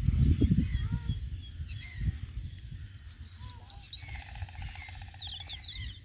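Several small birds singing and calling together: short high chirps, quick downward whistled slurs and a rapid trill about four seconds in. A gusty low rumble of wind on the microphone runs underneath and is loudest in the first two seconds.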